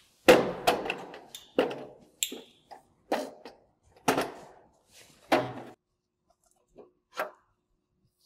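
Metal clanks and knocks as a belt positioner frame is lifted and set against a conveyor's metal structure: a run of about seven sharp impacts with short ringing over the first five seconds or so, then two lighter knocks near the end.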